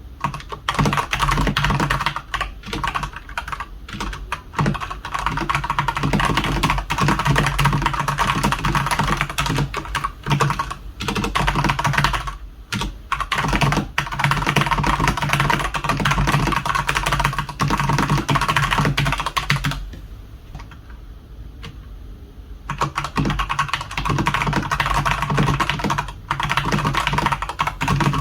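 Fast continuous typing on a Redragon Sindri K671 mechanical keyboard with Outemu red linear switches, a dense run of key clacks with a few short pauses and a longer break past the middle.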